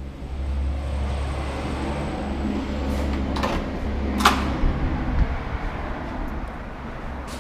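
Door handle and latch clicking as a door is opened, with the sharpest click a little past four seconds in, over a steady low rumble.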